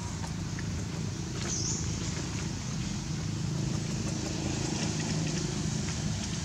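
Steady low rumble of background noise, with a few faint ticks and a brief high squeak about a second and a half in.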